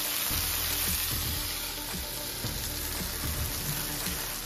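Blue marlin fillet frying in oil in a nonstick pan, a steady sizzle.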